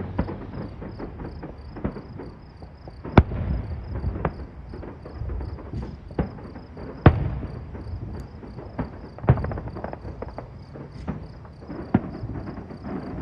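Aerial fireworks bursting: sharp booms a second or two apart, the loudest about three and seven seconds in, with smaller crackles between them. Insects chirp steadily underneath.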